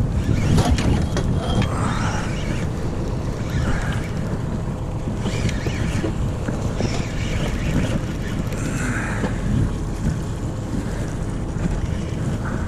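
Wind buffeting the microphone on a boat at sea: a steady low rumble and rush with no distinct mechanical rhythm.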